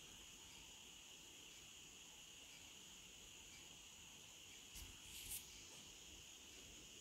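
Near silence: a faint steady high-pitched hiss, with two faint soft clicks about five seconds in.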